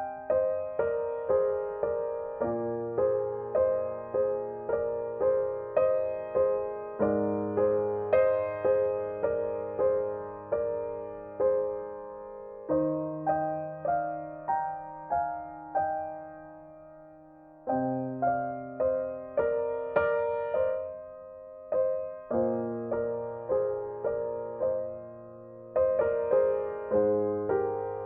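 Background music: a gentle solo piano playing slow single notes over sustained bass notes, each note struck and left to fade.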